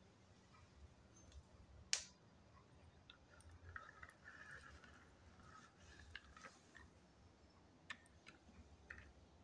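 Near silence with a few faint clicks and taps from a small die-cast toy car being handled and set down, the sharpest about two seconds in. A faint rustle in the middle may be the car's wheels rolling on a mat.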